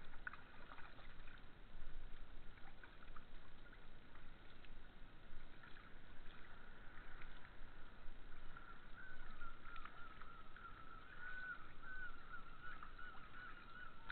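Kayak paddle strokes dipping and splashing in calm river water, faint, with scattered drips. Behind them runs a steady faint high tone, and for a few seconds past the middle a wavering whistle-like sound.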